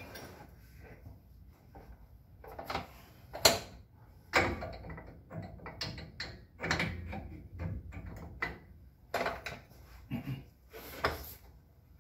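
Irregular metal clanks, clicks and scrapes from hand work on a Model A Ford pickup's rear leaf-spring shackle as new shackles go in with a spring spreader, with the sharpest knocks about three and a half and four and a half seconds in.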